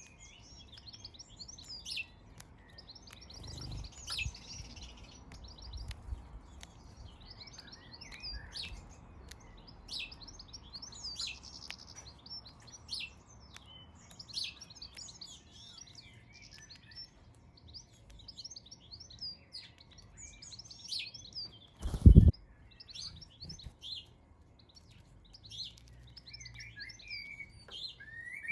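Garden birds chirping: a steady run of short, repeated chirps and twitters. About two-thirds of the way through there is a single loud, low thump.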